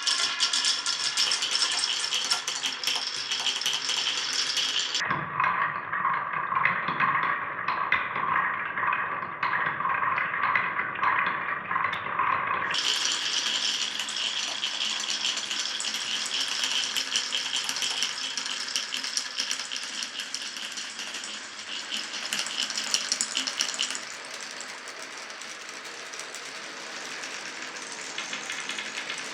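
Glass marbles rolling and clattering down wooden and plastic marble-run tracks, a dense stream of fast clicks and rattles. For several seconds in the middle the sound turns duller, and it grows quieter for the last few seconds.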